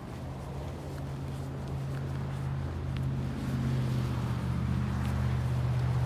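A steady low mechanical hum that grows gradually louder.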